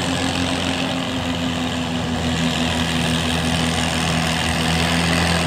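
Tractor engine idling steadily with a low, even hum.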